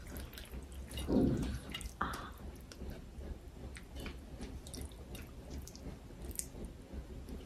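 Wet, squishy sounds of dressed green papaya salad with squid and shrimp sliding out of a mortar onto a plate as it is scraped out by hand, with scattered light clicks. A louder squelch comes about a second in.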